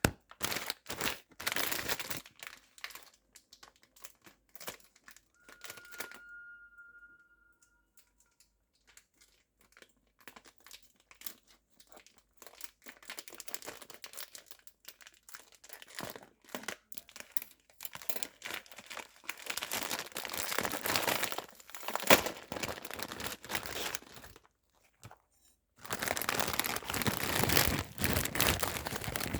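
Plastic packaging crinkling and tearing in irregular bursts, with a brief steady high tone about six seconds in.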